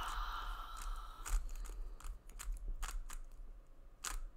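A 3x3 speed cube being turned fast: a quick run of plastic clicks and scraping as the layers snap round, with a louder click about four seconds in.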